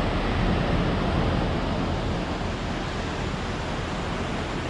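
Flood-swollen creek water rushing in a steady roar of noise, high with runoff after days of heavy rain.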